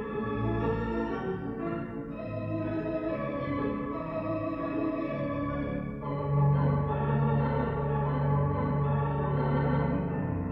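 Hilsdon 3-manual, 29-rank theatre pipe organ playing held chords. About six seconds in, a deep bass note enters and the music grows louder.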